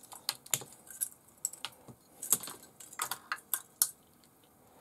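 Hands handling RC-car wiring and plastic plug connectors: an irregular string of small sharp clicks and rattles, loudest about two and four seconds in, then a short quiet spell near the end.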